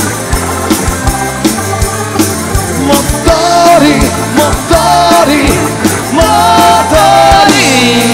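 Live pop-rock band playing loud: drums keeping a steady beat under bass and a sliding, held melody line.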